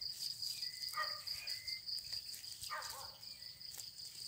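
Crickets trilling steadily in a high, even band. Short pitched calls come about every two seconds, with a few light clicks from the wire-mesh trap being handled.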